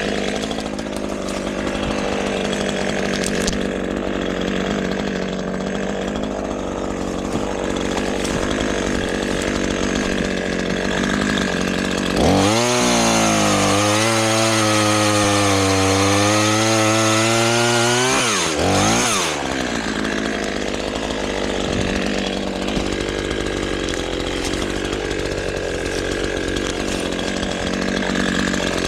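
Two-stroke chainsaw cutting through sassafras wood under load. About twelve seconds in, the saw runs free at high revs for about six seconds, drops back, blips once and goes back into the cut.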